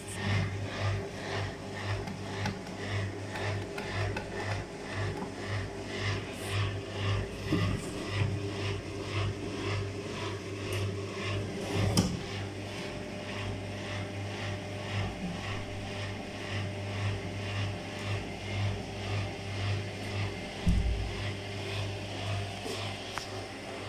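Indesit WIUN82 front-loading washing machine in its spin cycle: the drum turns with a steady motor hum and a regular pulsing beat that evens out in the second half. A single sharp knock comes about halfway through.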